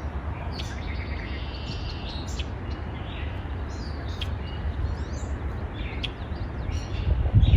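Songbirds chirping in short scattered calls over a steady low rumble of wind on the microphone, which grows louder near the end.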